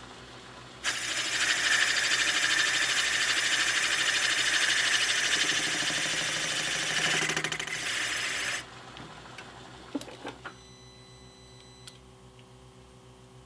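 A high-speed-steel boring bar in a milling machine cuts the aluminium intake port of a Saab intake manifold. The loud, steady cutting noise starts about a second in and stops abruptly after about eight seconds. A few light metallic clicks follow as the bar is handled, over a low machine hum.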